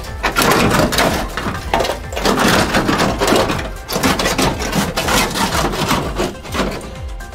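Rust-rotted sheet metal of a 1967 VW Bus front end scraping, rattling and crunching in waves as it is wrenched loose by hand.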